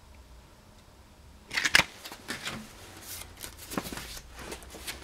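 Stiff paper card being handled and turned over: a run of irregular rustling and scraping that starts about a second and a half in, loudest just before two seconds in.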